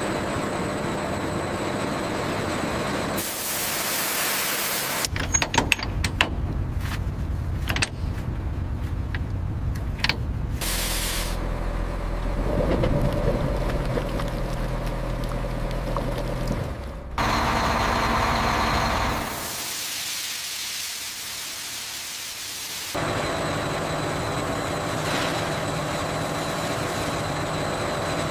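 Factory machinery sounds that change every few seconds: bursts of hiss, a run of sharp clanks and clicks, and a steady low motor hum with a faint whine, as from a pump.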